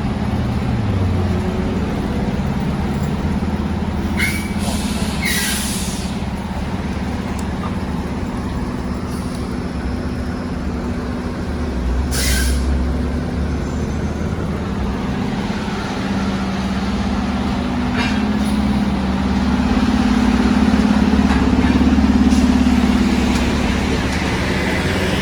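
Heavy diesel fire truck running, with several short air-brake hisses; the engine grows louder near the end.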